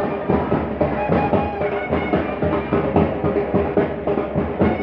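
A uniformed marching band plays a lively tune: bass drum beats keep a steady rhythm under wind instruments holding sustained notes.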